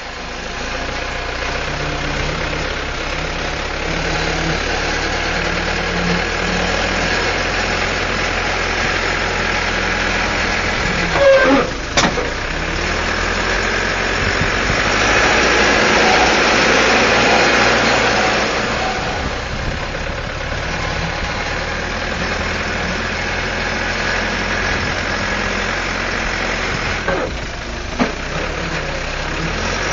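Caterpillar 416C backhoe's Perkins turbo diesel engine running, growing louder a little past the middle as it works harder, then easing back. Two sharp knocks stand out, one a little before halfway and one near the end.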